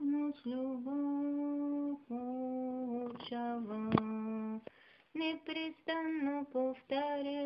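A woman's voice humming a slow melody without words, in long held notes. One sharp click about four seconds in.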